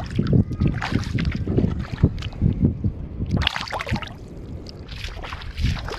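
Wind buffeting the microphone, with shallow water splashing and sloshing in irregular bursts.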